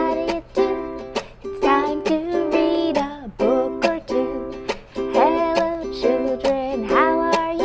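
A ukulele strummed in a steady rhythm of chords, with a woman singing along.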